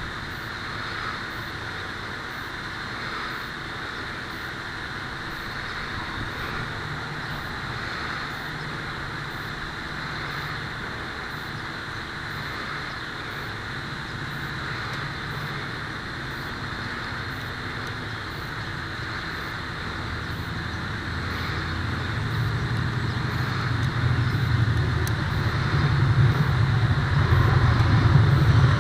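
Steady background noise with a low engine drone that grows louder over the last several seconds.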